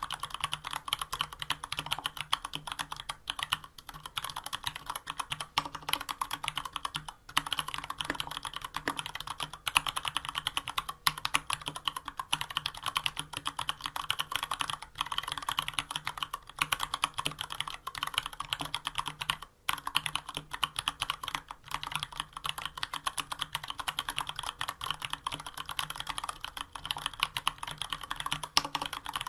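Continuous fast typing on a Varmilo VA104M full-size mechanical keyboard with unlubricated Cherry MX Brown switches and dye-sublimated PBT keycaps: a dense clatter of key presses with a few brief pauses.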